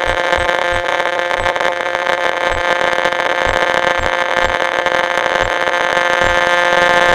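Electronic noise-music drone: a dense, steady chord of many tones over hiss, with irregular low thuds underneath.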